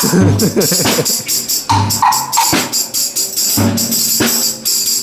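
Hip-hop beat playing. A low kick drum hits about every two seconds under a steady jangling, tambourine-like high percussion loop, with a short sliding tone in the first second.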